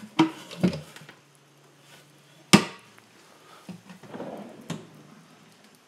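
Plywood storage drawer built into a wooden stair riser, worked by its finger holes: a few wooden knocks and scrapes, with one sharp clack about two and a half seconds in.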